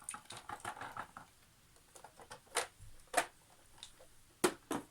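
Scattered sharp clicks and knocks of hard plastic being handled, with a light crackle in the first second. The sound comes from the plastic body and dustbin of a Bralko Galaxy robot vacuum being handled; the robot is not running.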